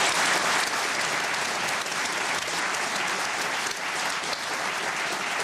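Studio audience and panel guests applauding steadily, easing off slightly toward the end.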